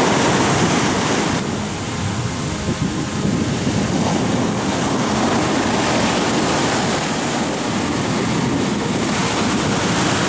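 Ocean surf: waves washing in and breaking, a steady rushing noise.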